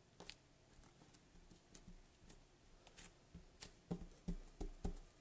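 Faint taps, clicks and paper rustles of fingers pressing a glued paper panel flat onto a card, with a few louder soft knocks on the table near the end.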